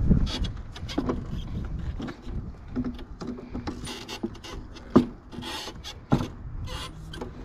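A Makita push lawn mower being handled and turned around: scraping and rubbing with a scatter of clicks, and two sharp knocks about five and six seconds in.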